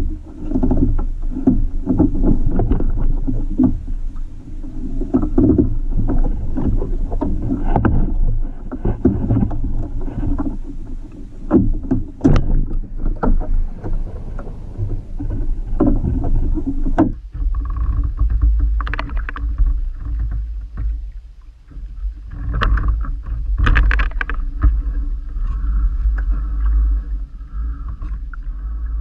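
Water lapping and splashing against a kayak's hull, with wind buffeting the microphone as a low rumble that gets heavier about halfway through. A few sharp knocks on the boat come in the middle.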